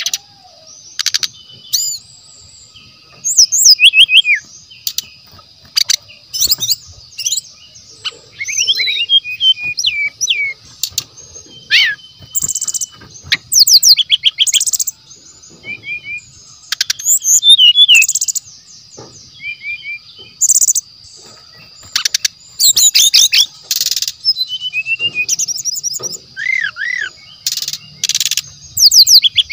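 Sikatan rimba dada coklat (brown-chested jungle flycatcher) singing in quick bursts of chirps, trills and rising and falling whistled phrases, over a steady high-pitched drone.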